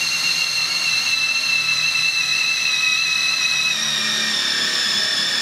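Cordless drill running steadily as an HSS wood twist drill bit bores into the edge of a wooden board: a continuous high motor whine whose pitch drifts slightly lower.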